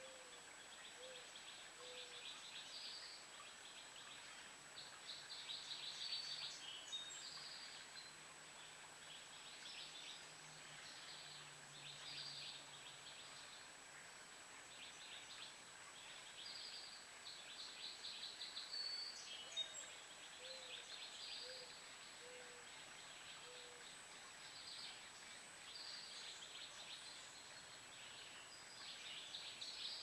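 Faint natural ambience of small birds giving short chirps and trills, a burst every second or two, with a low call of four short notes heard twice.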